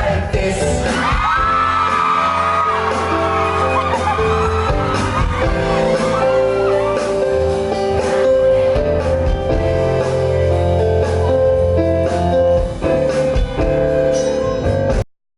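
Live pop-rock band playing a song with sung vocals over guitar, bass and drums, heard amplified in a large room; the sound cuts off abruptly near the end.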